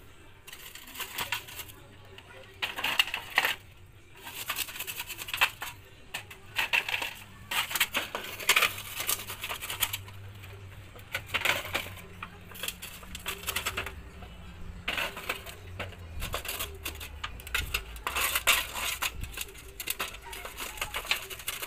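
Live charcoal being scraped up with a scrap of galvanized iron sheet and tipped into a punched-tin heater: repeated bouts of metal scraping over embers and stone, with small pieces of charcoal clinking against the metal.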